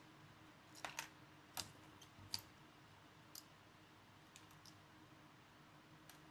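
A few small, sharp clicks and taps of small parts or tools being handled, several close together in the first two and a half seconds and fainter ones after, over a faint steady hum.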